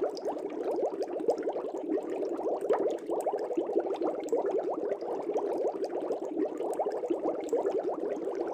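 Aquarium air bubbles rising and burbling at the water surface: a continuous, dense stream of many small bubbles with light popping.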